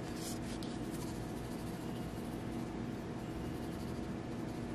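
Quiet steady low hum of the room, with a few faint soft ticks in the first half-second as garlic powder is shaken from a plastic spice shaker onto a raw chicken.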